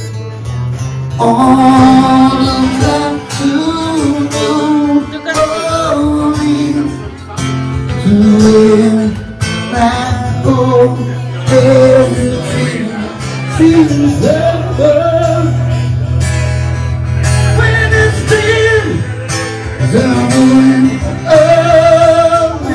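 Live acoustic song: a man singing into a microphone over an acoustic guitar, with held, gliding vocal notes through the whole stretch.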